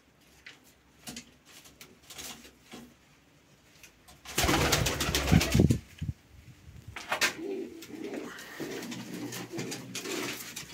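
Domestic pigeons cooing in a small loft, low and wavering through the second half. About four seconds in comes a loud, noisy flurry lasting about a second and a half, the loudest sound present.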